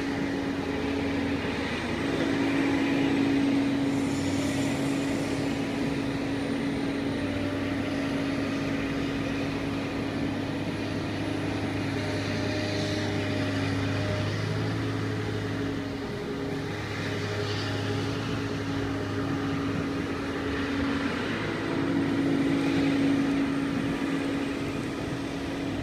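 A large material handler with a grab running as it swings its boom to unload coal: a steady machine drone with a hum that swells louder twice, a few seconds in and again near the end.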